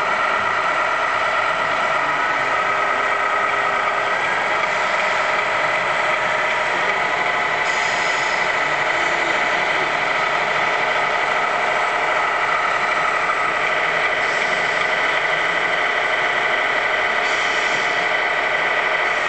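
Small motor of a radio-controlled model vehicle running steadily, a constant whine with several steady tones, heard close up. A few brief hisses come and go over it.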